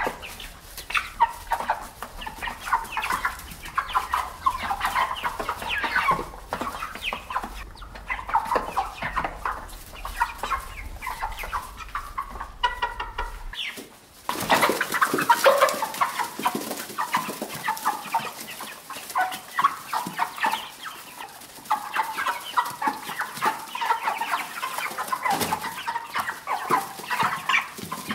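Chickens clucking, a steady run of short calls. About fourteen seconds in the recording changes: a low background hum stops and a new stretch of clucking begins.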